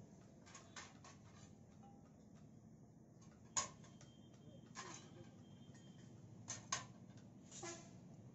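A handful of light metallic clicks and clinks as metal pieces and tongs are handled in a forge hearth's coals, the loudest about three and a half seconds in, over a faint low hum.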